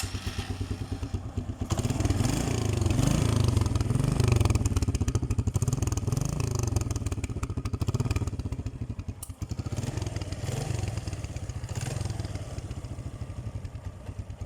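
Suzuki Best 125's single-cylinder four-stroke engine starting up and running, revved up and down a few times with idling in between. The engine has just been reassembled after its loose centrifugal clutch was re-tightened on the crankshaft.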